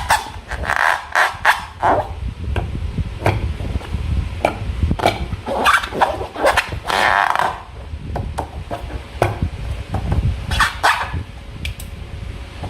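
Slime being squeezed and worked by hand, giving irregular wet squelches and sharp sticky clicks and pops.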